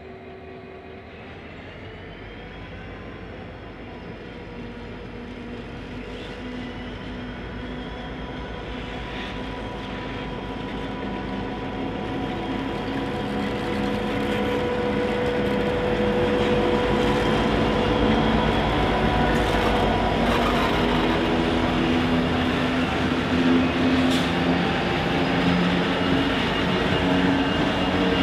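Three EMD two-stroke diesel locomotives (G541 leading DL45 and DL47) hauling a container train under power, their engine drone growing steadily louder as they approach and pass close by. The engine note rises briefly about two seconds in, and a few sharp clanks from the running gear come through in the second half as the wagons begin rolling past.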